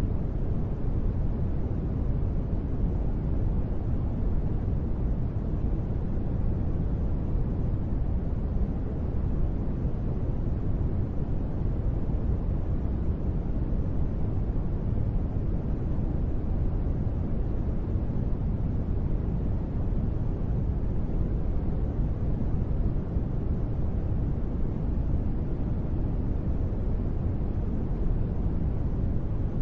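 Steady, unchanging sleep noise: a deep, even rumble with most of its weight in the low end and little hiss, with no separate drops or pauses. The track is billed as gentle white-noise rain.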